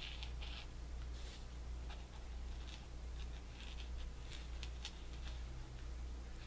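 A marker tip scratching in short, irregular strokes on a paint-covered paper page as letters are outlined, over a steady low hum.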